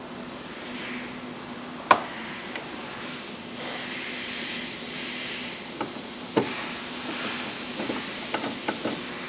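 Hand work on car interior trim: two sharp knocks, the first the loudest, then a quick run of lighter clicks near the end, over a steady low hum and faint hiss.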